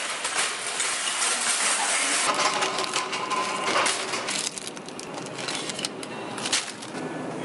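Metal wire shopping cart rattling and clattering as it is pulled free from a row of nested carts and pushed along.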